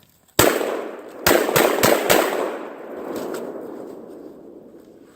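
Saiga 12 semi-automatic 12-gauge shotgun firing birdshot: one shot, then four rapid shots about a quarter second apart, with a long echo fading over the next few seconds.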